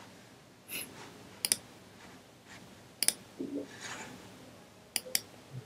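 A few sharp computer mouse clicks a second or two apart, with two in quick succession near the end.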